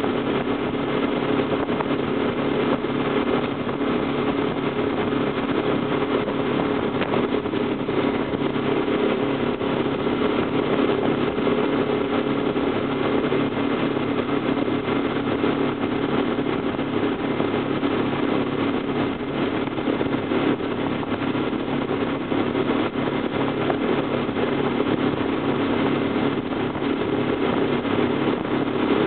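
Motorboat engine running steadily under way while towing a tube, with the rush of water from the wake behind it.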